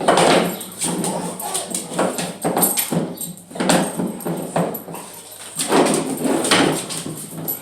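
Pet dog making short vocal sounds in about five separate bursts during play.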